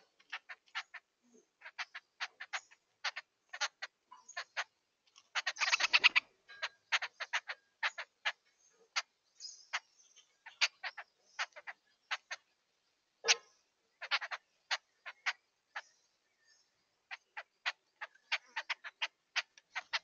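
Jungle babblers chattering in short, harsh, clicking calls, two to four a second with uneven gaps, with a louder run of rapid calls about six seconds in.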